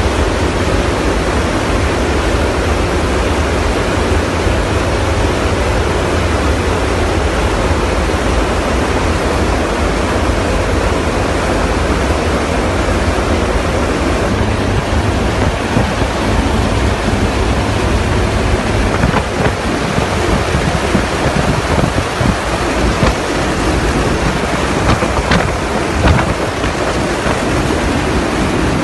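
Loud, steady roar of rushing air and engines inside a transport aircraft's cargo hold with the rear ramp open in flight. Gusts buffet the microphone now and then in the second half.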